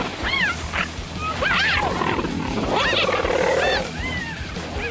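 Cheetahs calling during a scuffle: a run of short, high-pitched calls, each rising then falling in pitch, with a lower, rougher call about three seconds in.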